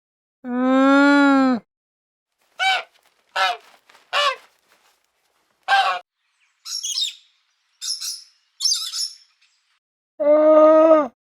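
A single long animal bleat, followed by four short calls that fall in pitch and then a few harsh, high bird chirps and squawks.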